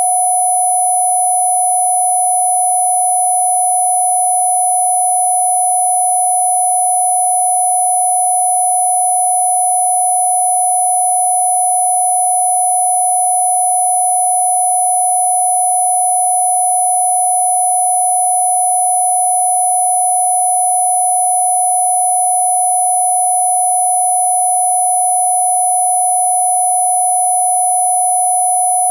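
An electronically generated sine tone of the kind sold as a Rife healing frequency: a single steady, unchanging pure tone, with much fainter high tones above it.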